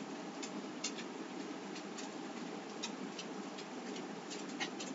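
Irregular small clicks and scratches of fingers and fingernails working at a small painted wooden ornament cutout, cleaning up stray paint, over a steady low room hum.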